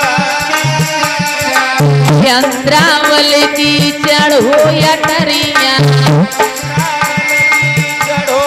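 Indian folk dance music: a hand drum keeps a steady repeating rhythm under a melody of wavering, bending notes.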